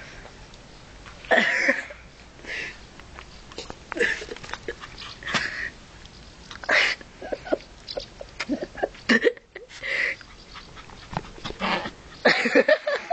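Dogs, an American Staffordshire terrier mix and a Pekingese, barking in short bursts as they tussle, a bark every second or two.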